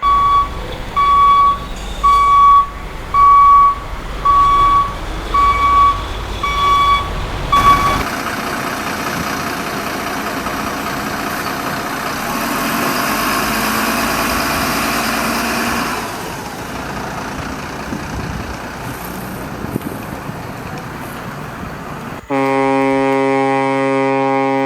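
Truck reversing alarm beeping about once a second over a low engine rumble, then a heavy truck engine running steadily, and near the end one long air-horn blast of about two seconds.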